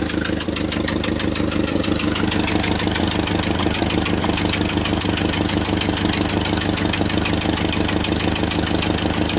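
Ford 8N tractor's four-cylinder flathead engine running steadily at idle, with a fast, even pulsing. The pulsing comes from an exhaust leak at the manifold.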